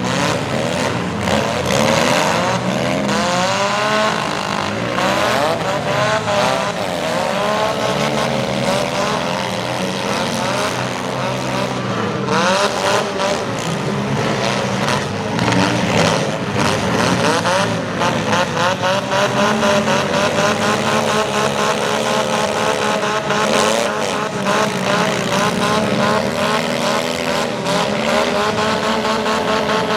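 Several front-wheel-drive demolition derby cars' engines revving, rising and falling in pitch over one another, with a few sharp knocks near the middle. In the last third one engine holds a steadier, fast-pulsing high rev.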